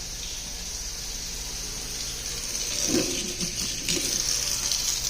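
Water running from a sink faucet in a steady hiss, growing louder about two seconds in. It is left running to see whether the newly connected water heater sends hot water through, which it has not yet done.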